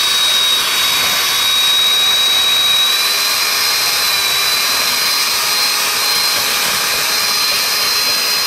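Electric hand mixer running steadily, its twin beaters whipping a thin liquid into froth. A high steady whine rides over the motor noise and steps up slightly in pitch about three seconds in.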